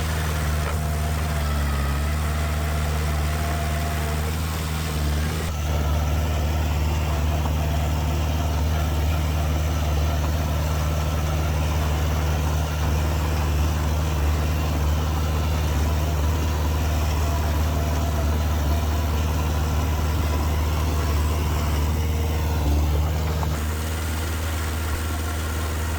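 Heavy diesel engine running with a steady low drone. Its note shifts slightly about five seconds in and again near the end.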